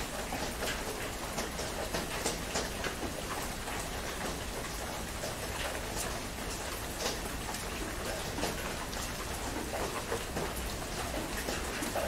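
Heavy rain falling steadily on a tent, an even hiss dotted with many sharp drop taps.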